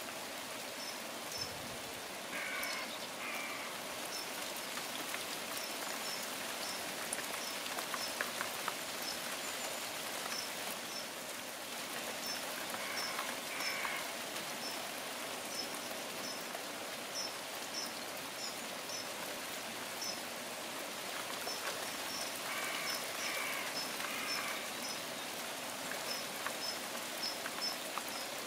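Steady rain falling, with a high, short chirp repeated over and over and three brief bursts of calling, about 2.5, 13 and 23 seconds in.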